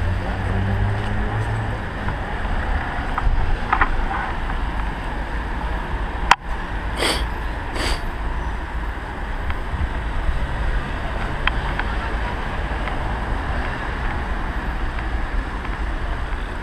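City street traffic noise on wet roads: a steady rumble and hiss of passing cars, with a low engine hum fading out in the first two seconds. A sharp click comes about six seconds in, then two short higher-pitched sounds about a second apart.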